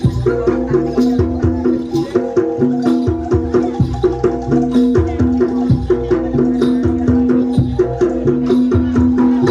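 Live Javanese jaranan gamelan music: a fast, even, repeating pattern of pitched percussion with drum strokes, over one long held tone.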